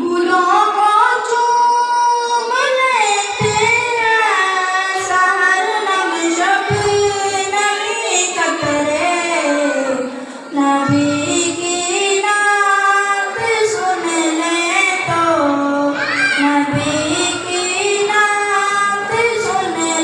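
A boy's solo voice singing a slow, unaccompanied melodic chant into a handheld microphone, with long held notes that waver and turn. He breaks off briefly for breath about halfway.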